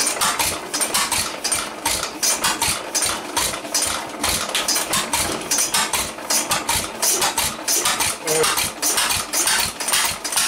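1913 Stickney 1 3/4 HP hit-and-miss engine running, an even rhythm of sharp firing and valve-gear knocks at about three beats a second.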